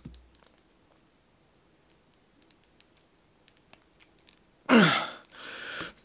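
Faint scattered clicks from 3M mushroom-head reclosable fastener strips being handled and pressed together. Near the end comes a loud, short strained vocal grunt that falls in pitch, followed by about a second of hissing effort as the man pulls hard to part the locked strips.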